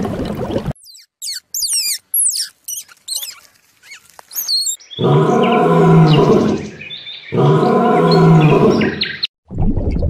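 A white lion gives two long, low calls, each about two seconds. They come after a run of quick, high chirping whistles from an unseen animal.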